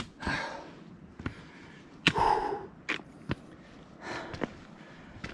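A hiker breathing hard after a steep climb, with three heavy breaths about two seconds apart. Short sharp taps and steps fall between the breaths.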